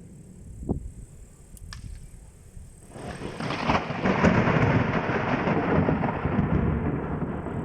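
Close thunder: a sudden crack about three seconds in, then a loud rumble that slowly fades.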